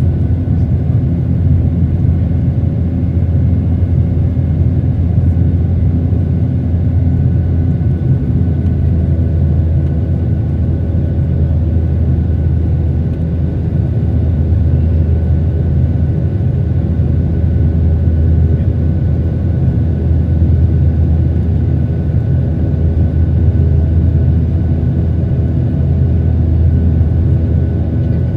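Airbus A320 cabin noise in flight, heard from a window seat beside the engine: a steady low jet engine and airflow drone, with a few faint steady hums on top.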